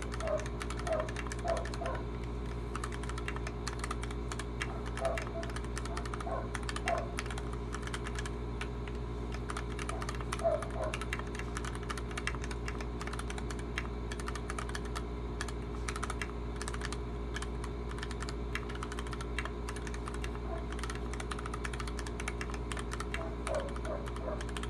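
Continuous fast typing on a 60% mechanical keyboard with stock Gateron Yellow Milky linear switches, a polycarbonate plate, an aluminium case, PBT keycaps and foam dampening: a steady stream of muted keystroke clacks. A steady low hum runs underneath.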